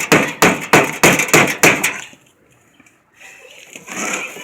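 A quick run of sharp knocks, about three a second, that stops about two seconds in, followed near the end by a softer rustling noise.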